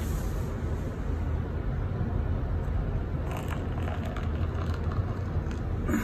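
Steady low rumble of a vehicle in motion, with an even noise haze over it.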